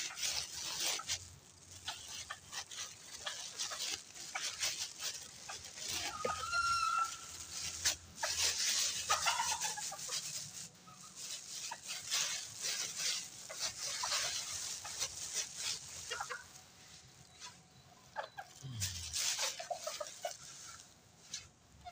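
Bantam chickens pecking feed off a concrete floor, their beaks making many quick, irregular taps, with short clucks now and then.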